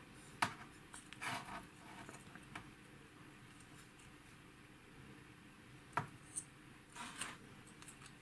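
Faint handling noises from an opened aircraft compass detector unit and its braided metal cable being turned over in the hands: a sharp click about half a second in, a short scrape after a second, and a few more clicks and rubs around six to seven seconds in.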